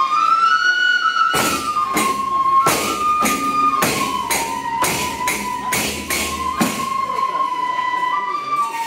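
Frame drums struck by hand in a slow, uneven beat, about ten strokes, under a sustained, wavering melody line; the drumming stops about two-thirds of the way through while the melody carries on.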